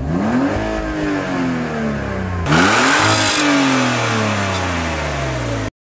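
Car engine revved twice. Each time the pitch climbs quickly and then falls away slowly; the second rev starts abruptly about halfway through, and the sound cuts off suddenly near the end.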